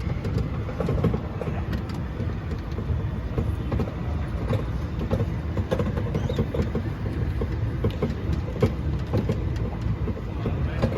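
Mall ride-on kiddie train running: a steady low rumble with frequent irregular clicks and knocks, and none of the music it usually plays.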